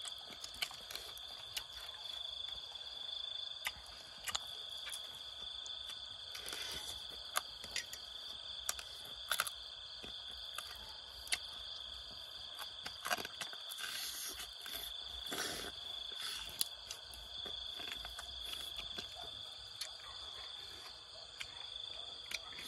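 Close-up eating sounds: smacking, wet clicks of chewing and the tearing of roasted rat meat pulled apart by hand, scattered irregularly. Under them a steady high-pitched insect chirring, like crickets, runs without a break.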